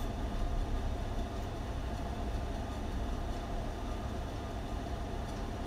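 Steady low rumble with a constant faint hum and no distinct events: background machine or room noise.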